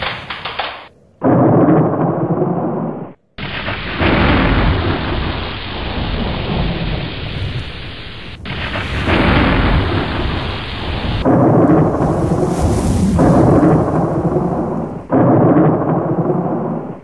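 Thunder rumbling and rain during a close thunderstorm, with lightning striking nearby. The sound cuts abruptly between recordings several times.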